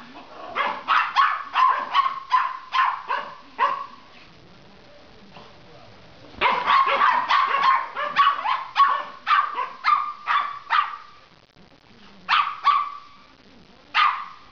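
Silky Terrier and Papillon puppy barking at each other in play: quick runs of sharp, high barks about three a second, a lull of a couple of seconds, another run, then a few single barks near the end.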